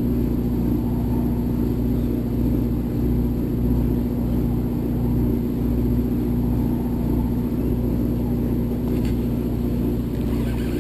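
Steady low drone of a party boat's engine running at an even pace, with a constant hum that does not rise or fall.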